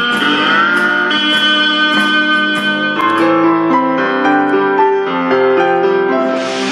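Music with a keyboard melody playing through a small AOMAIS Bluetooth speaker. Near the end the music changes abruptly to a new passage as a long press on the speaker's button skips to the next track.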